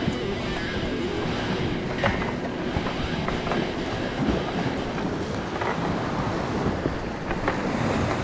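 Steady rumbling wind on the microphone with surf noise, broken by scattered knocks and clicks.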